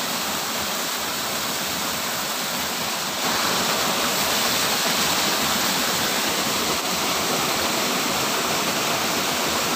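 Small cascade of water pouring steadily into a muddy pool below a fish-pond outflow, a constant rushing that gets a little louder about three seconds in.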